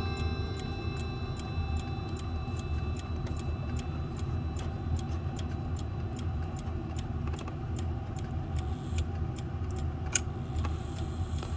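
Howard Miller 612-437 clock's mechanical chime movement ticking steadily, while the last ringing of its chime rods fades away at the start. One sharper click comes near the end.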